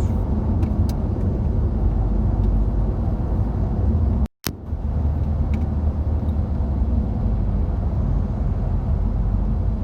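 Car driving on a road: a steady low rumble of engine and tyres. It cuts out briefly about four seconds in, with a click as it resumes.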